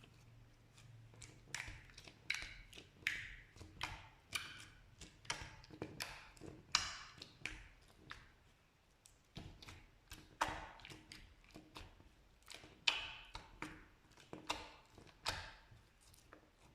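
Slime being worked by hand, giving a string of sharp, sticky pops and clicks, about one or two a second, starting about a second and a half in.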